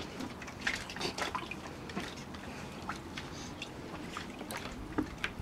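Puppies' paws and claws tapping and scrabbling on a wet plastic paddling pool, an irregular patter of light taps and wet slaps.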